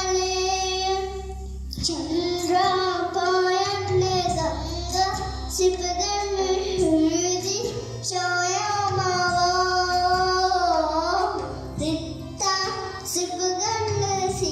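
A young girl singing a song, holding long, wavering notes between shorter phrases, with brief pauses for breath about two and twelve seconds in.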